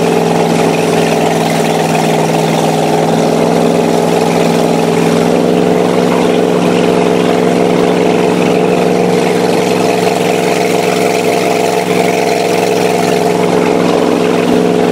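Motorboat engine running steadily under way, towing tubes, with the rush of wake and wind over it; its pitch steps up slightly about five seconds in.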